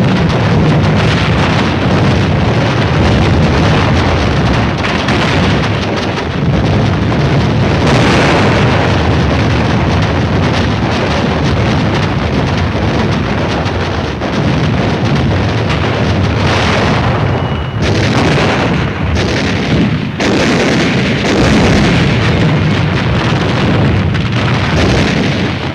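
A dense, continuous rumble of naval gunfire and shell explosions from a shore bombardment, the blasts running together rather than standing apart as separate shots.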